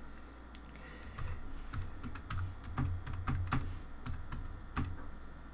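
Computer keyboard typing: a run of irregular keystrokes, entering a file name, starting about half a second in and stopping near the end.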